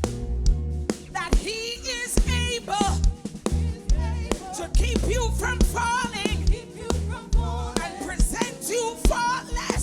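Gospel praise band playing, with a steady drum beat and bass under singing voices.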